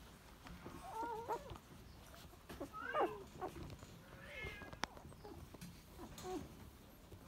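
Newborn cockapoo puppies squeaking: a handful of short, high cries that waver in pitch, the loudest about three seconds in. A single sharp click just before five seconds.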